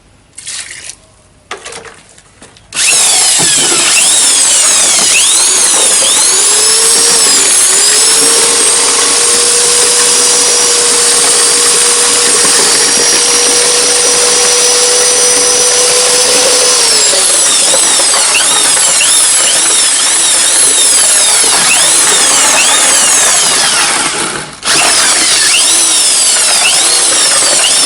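Ryu RED 16 RE mixer drill running with its paddle in a bucket of sand-cement mortar, the motor whine dipping and rising as the load changes. A few knocks come first; the drill starts about three seconds in, stops briefly near the end and starts again.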